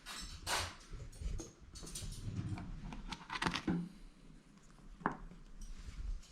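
A container of food being opened and handled: scattered clicks, taps and scrapes, with a short squeak about five seconds in.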